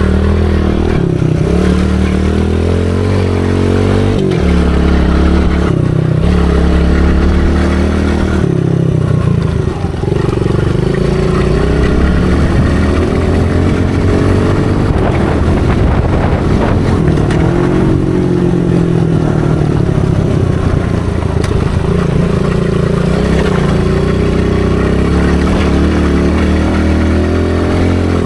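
Small dirt bike's single-cylinder engine, heard from on board as it is ridden, its pitch climbing under throttle and dropping back over and over.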